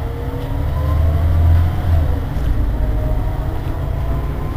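Irisbus Citelis 18 articulated bus's rear-mounted diesel engine idling at a standstill, a steady low rumble that swells briefly about a second in.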